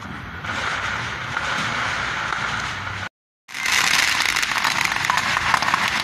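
Fireworks hissing and crackling. After a brief complete silence about three seconds in, ground fountain fireworks give a dense, rapid crackle.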